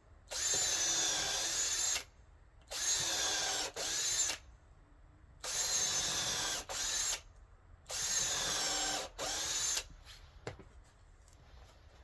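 Power drill driving a 10-inch HeadLok timber screw into a wooden beam, run in about seven short trigger pulls of a second or less, its motor whine wavering in pitch under load.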